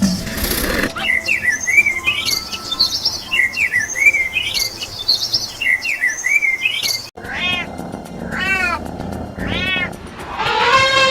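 Repeated high chirping for the first few seconds, then a cat meowing three times, about a second apart. A longer held animal call begins near the end.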